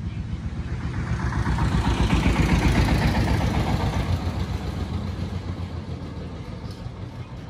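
Small engine of a three-wheeled engine van running with a rapid, even beat while its hydraulic tipper bed is lowered. The engine swells louder from about a second in and eases off again after about three seconds.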